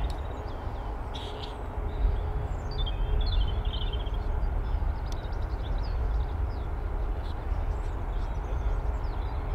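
Airbus A350's Rolls-Royce Trent XWB engines at taxi power, a steady low rumble with a faint steady hum. Small birds chirp briefly, most clearly about three seconds in.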